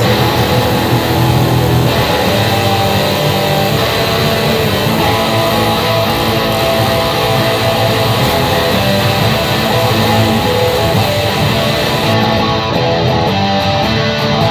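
Intro music: a loud guitar-driven rock track with electric guitar and bass, cutting off abruptly at the end.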